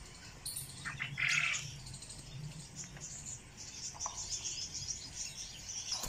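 Caged rose-ringed parakeets calling: one loud, harsh squawk about a second in, then a run of rapid, high-pitched chirping.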